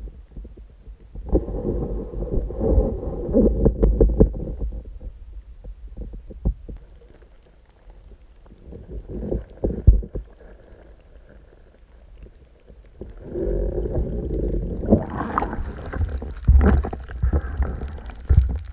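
Muffled water sloshing and knocking against a submerged action camera's waterproof housing, coming in bouts, with one sharp knock about halfway through. Near the end comes a longer, louder stretch of sloshing and knocks as the camera is brought up out of the pond.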